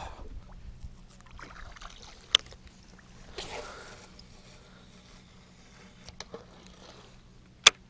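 Quiet fishing-boat sound on open water: a faint steady low hum under a soft swishing swell about three and a half seconds in. Two sharp clicks cut through it, one about two seconds in and a louder one near the end.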